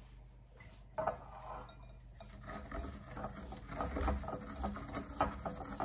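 Wooden pestle grinding and pressing chopped parsley in a ceramic suribachi mortar. There is a single knock about a second in, then uneven scraping and thudding strokes against the grooved bowl from about two seconds on.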